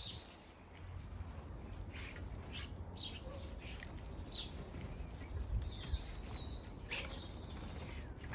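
Small garden birds chirping at a seed feeder: short, falling chirps scattered through, about one every half second to second, over a low steady rumble.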